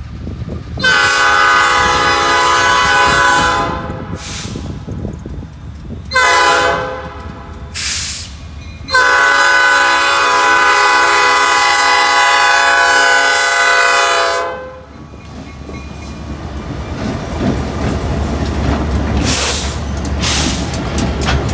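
Diesel freight locomotive air horn sounding the grade-crossing signal, long, long, short, long, with the last blast held about five seconds. Then the locomotives pass close by, their diesel engines rumbling louder and their wheels clicking over the rail joints near the end.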